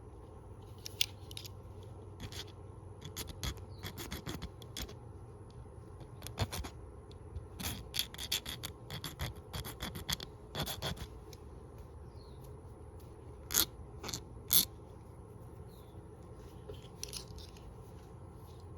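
Hand file scraping in short strokes, trimming an aftermarket thumb bar to fit a Leatherman Wave multitool. The strokes come in irregular bursts with pauses, and two louder strokes come about thirteen to fifteen seconds in.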